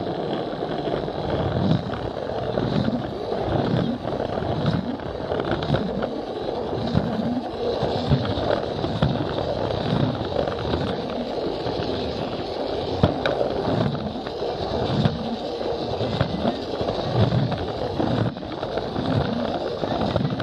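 Plarail battery-powered toy train carrying a camera, running along plastic track: a steady whirring rattle of motor and wheels on the plastic rails, with a knock repeating about once a second.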